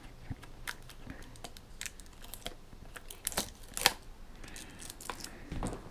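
Cardboard and paper packaging being handled: scattered small clicks, rustles and scrapes as in-ear monitors and their cable are worked out of a white cardboard box tray.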